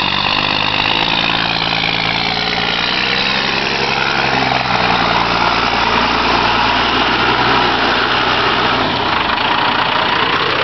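Two pickup truck engines running under load, their revs rising and falling, as a Ford pickup pulls a Dodge Ram pickup stuck in mud on a tow strap while the Ram's wheels spin in the mud.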